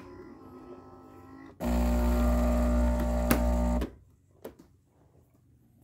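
Philips 3200 automatic espresso machine running a steady mechanical buzz for about two seconds, as it works through making a shot of espresso. The buzz starts suddenly and stops just as suddenly, followed by a few faint clicks.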